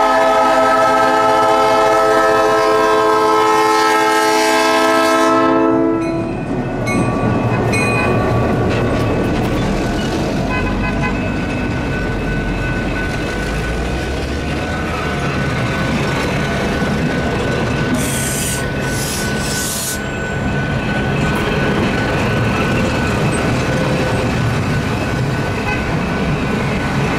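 A diesel locomotive's Nathan P3 air horn sounds a long, steady chord and cuts off about six seconds in. After that comes the steady rumble and rail noise of the moving train.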